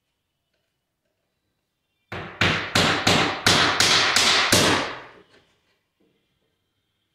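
Hammer driving a nail to fasten trim on a laminate-covered stair edge: about eight quick strikes, roughly three a second, starting about two seconds in and stopping about three seconds later.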